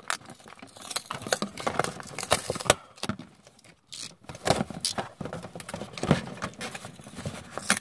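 Hands handling and opening a taped cardboard box: irregular scrapes, taps and rustles of cardboard and tape, with frequent sharp clicks.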